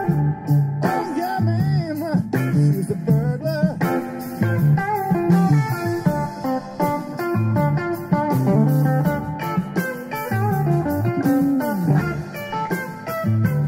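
Blues-rock band playing: electric guitar with bent, wavering notes over bass guitar and drums.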